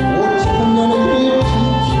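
A man singing a Korean song into a hand-held microphone over a backing track of sustained keyboard chords and a changing bass line, heard through a PA system.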